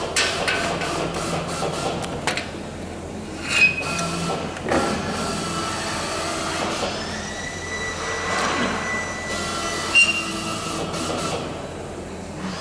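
Bench vice being screwed tight to press a joggle (a small step) into the end of a metal fuselage former between two small plates, with several sharp metal knocks and a thin squeaking as the metal gives.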